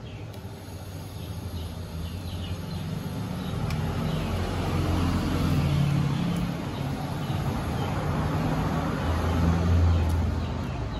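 Low engine rumble of a motor vehicle that grows louder through the second half, over a steady background hiss.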